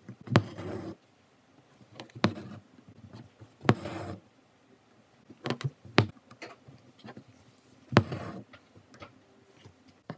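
Embroidery needle popping through fabric stretched taut in a wooden hoop, each stitch followed by a short scratchy pull of stranded cotton thread drawn through the cloth. About five stitches, roughly two seconds apart.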